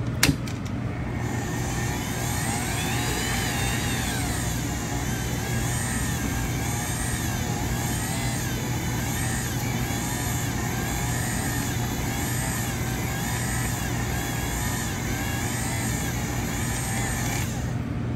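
Cuisinart stand mixer running, its flat beater churning thick choux pastry dough to work in a freshly added egg: a steady motor whine with a regular beat. It starts about a second in and stops near the end.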